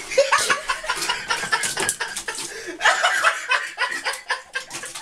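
People chuckling and laughing, over quick rustling and clattering of packets and bottles as a cat rummages in a cabinet.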